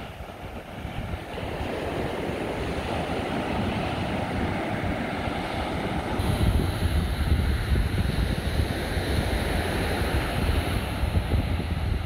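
Atlantic surf breaking and washing up a sandy beach in a steady rush. About halfway through, wind starts buffeting the microphone and adds a low rumble.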